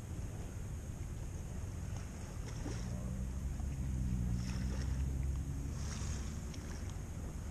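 Wind rumbling on the microphone over open water, with a low boat-motor hum that swells in the middle and fades again.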